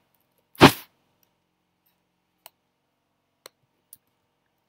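Typing on a computer keyboard: one loud, sharp keystroke about half a second in, then three faint key clicks spread over the next few seconds.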